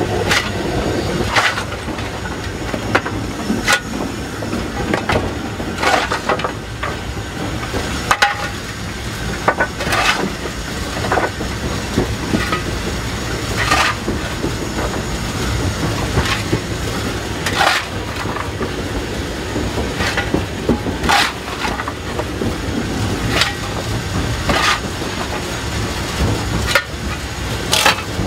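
Footplate of the steam locomotive LSWR T9 4-4-0 30120 on the move: a steady low rumble, with the coal shovel scraping and clanking every second or two as the fire is fed.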